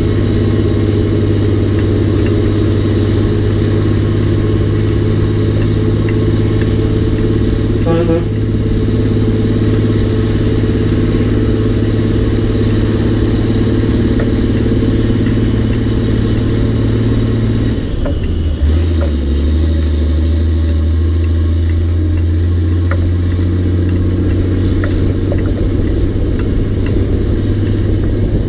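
Peterbilt 359's Caterpillar 3406 diesel pulling steadily under the load of a 23-tonne steam engine, heard from the trailer behind the cab. About 18 seconds in the engine note drops suddenly to a lower pitch at a gear change, then carries on pulling.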